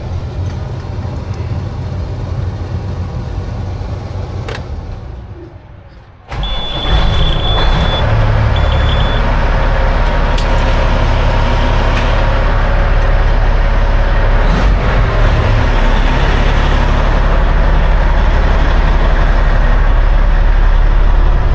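Peterbilt truck's Caterpillar diesel heard from inside the cab, at first quieter and fading. About six seconds in it jumps suddenly to a loud, steady low running sound as the truck pulls away, and a high beeping sounds on and off for a couple of seconds just after the jump.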